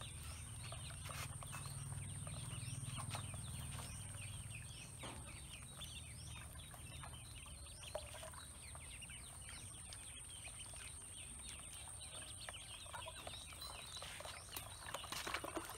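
A brood of ducklings peeping, many short high calls overlapping without pause and growing busier near the end. A steady high-pitched whine runs underneath.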